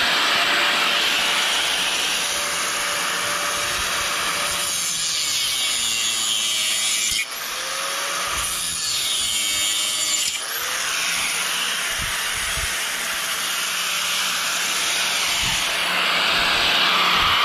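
Angle grinder with a cutoff wheel cutting through protruding steel bolts, a continuous high grinding whine. The motor dips briefly twice, about seven and ten seconds in, and runs back up each time.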